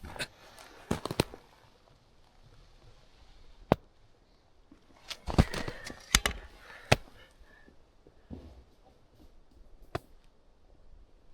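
Dry wood snapping: a string of sharp cracks at irregular intervals, with the loudest cluster in the middle.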